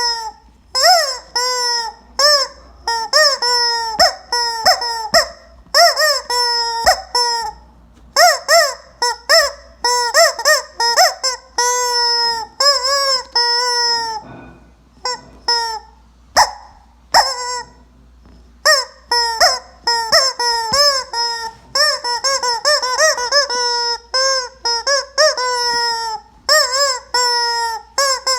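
Rubber chicken squeeze toy squeezed over and over, giving quick runs of high squawks that bend up and down in pitch, with a couple of brief pauses about halfway through.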